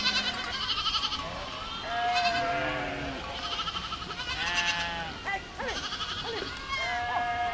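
A herd of goats bleating, many calls overlapping: long held bleats, some high and quavering, and a run of short calls in the latter half.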